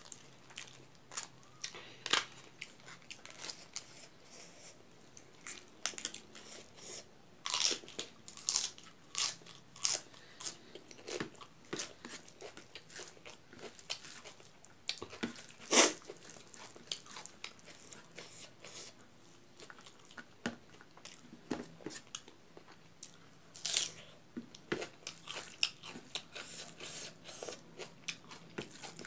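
Close-miked mukbang eating: chewing with crunchy bites of raw vegetables. Sharp crunches come irregularly throughout, the loudest about halfway.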